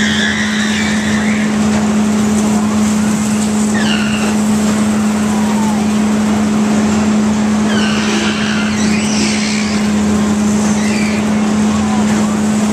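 Rock-N-Roll carnival ride running: a steady machine hum with short high squeals every few seconds.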